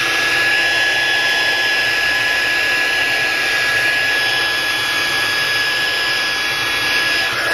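Heat gun blowing steadily, a rush of hot air with a thin high whine running through it, warming the adhesive that holds a smartphone's home button so it can be pried off.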